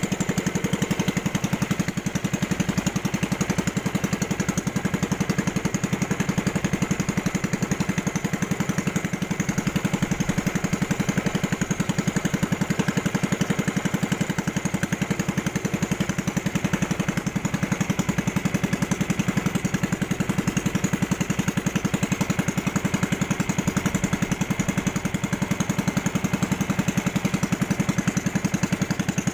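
Small boat engine running steadily under way, a fast, even putter that holds the same pace throughout.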